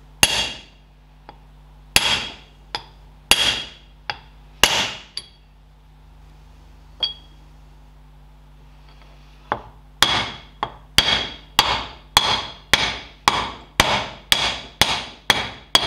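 Wooden mallet striking a steel drift to drive an oil seal into a Ferguson TED20 front wheel hub, each strike with a short metallic ring. A handful of spaced strikes come in the first five seconds, then a lull, then steady taps about twice a second from about ten seconds in, as the seal is driven home.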